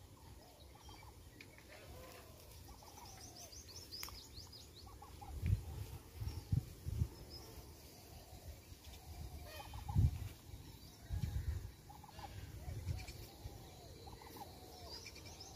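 Birds calling from the riverside vegetation: a rapid high trill of falling notes a few seconds in and again near the end, with many short repeated lower calls throughout. Several dull low thumps stand out in the middle, the loudest at about ten seconds.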